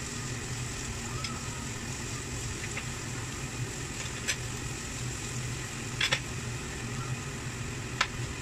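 Minced garlic sizzling gently in cooking oil in a stainless wok as it is sautéed and stirred with a nylon spatula, with a few short clicks of the spatula against the pan. A steady low hum runs underneath.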